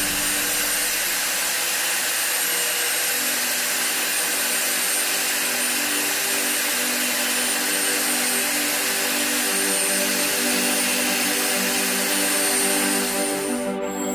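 Electric meat grinder running steadily, its motor humming as it pushes a soft paste through the mincing plate. The sound dips briefly near the end.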